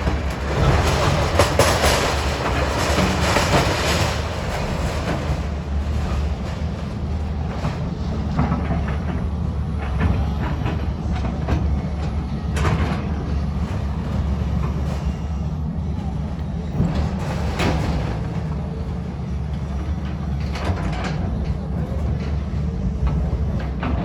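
A heavy engine running steadily as a low rumble, with scattered knocks and rattles over it.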